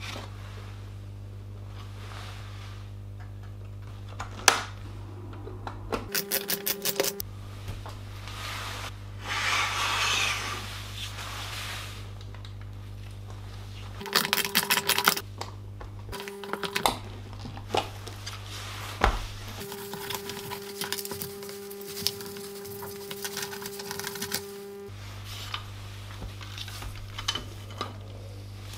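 Small electric screwdriver running in several short bursts and one longer run of about five seconds, with rapid clicking as it works the screws on a slim laptop optical drive. Sharp knocks of metal parts set down on the table and a brief rubbing sound fall in between, over a steady low hum.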